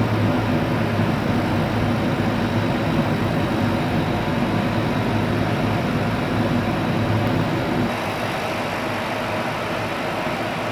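CNC laser cutting machine running, a steady mechanical hum that drops in level about eight seconds in.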